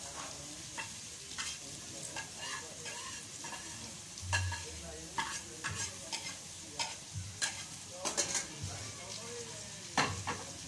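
Masala frying and sizzling in a metal pot while a metal spoon scrapes and clinks against the pot and a plate, in repeated sharp knocks, as green chillies and tomatoes are scraped in and stirred.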